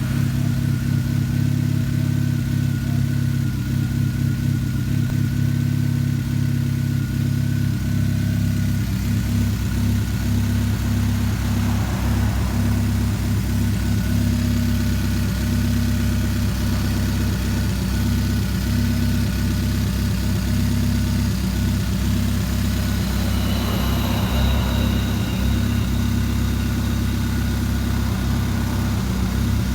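2013 Chevrolet Spark's four-cylinder engine idling with an uneven, stumbling beat: the sign of a misfire.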